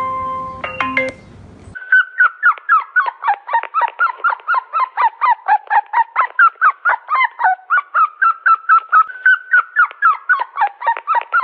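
Short music phrase that cuts off under two seconds in, then a bird calling in a long run of short, rapid calls, about four a second, alternating between a higher and a lower note.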